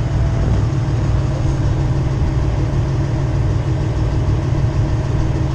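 Charter fishing boat's engine running steadily at low speed, a loud, even low drone.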